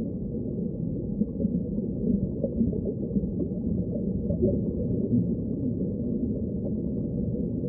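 Muffled underwater ambience: a steady low rumbling wash of water with nothing high-pitched in it, rising and falling a little.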